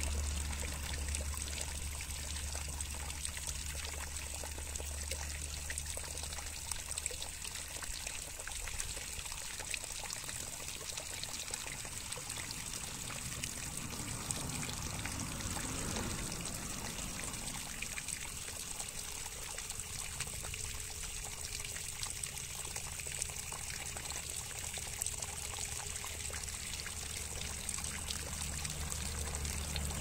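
Water pouring and trickling steadily, as a bath for a caged blue-crowned hanging parrot.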